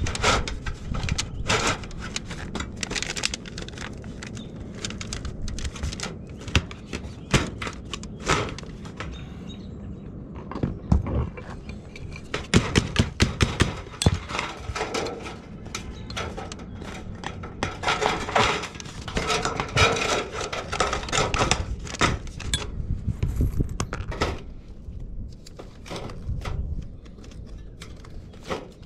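Irregular knocks, clatter and scraping from roofing tools and materials being handled.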